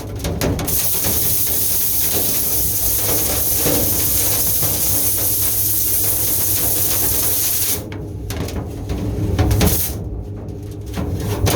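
Air hissing steadily for about seven seconds, then cutting off suddenly, over a low steady hum. Knocks and rattles follow the cut-off.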